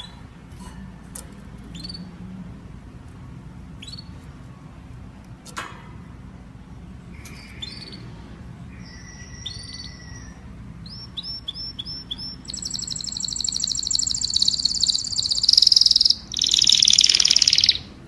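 Domestic canary singing: scattered short chirps and whistles, then, about two-thirds of the way in, a loud, rapid high trill that stops for a moment and starts again until just before the end.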